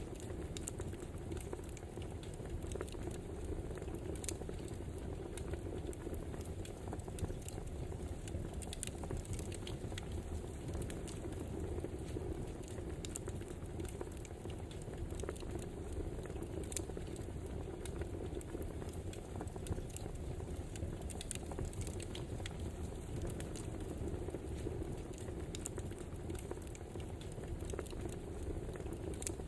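Wood fire crackling: frequent small, irregular pops and snaps over a steady low rumble of the flames.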